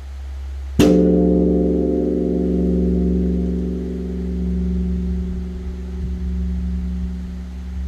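Large Korean temple bronze bell (beomjong) struck once with a swinging wooden log about a second in, then ringing on with many overtones and a deep wavering hum, the hum of the previous stroke still sounding before the strike. Rung as the dawn bell for the morning service.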